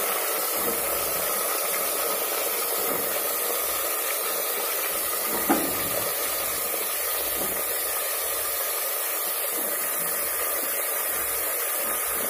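Steady whirring hiss with a faint hum under it, unchanging throughout, and one light knock about five and a half seconds in.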